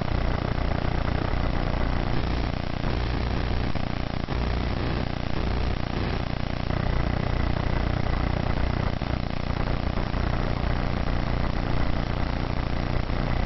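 Steady low hum with an even hiss, unchanging throughout, like a motor or fan running continuously in the background.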